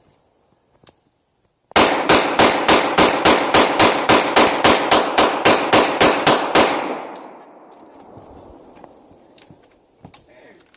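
Rapid gunfire: about twenty shots in quick, even succession, four or five a second, starting about two seconds in. The echo dies away over the following second, and a few faint clicks come near the end.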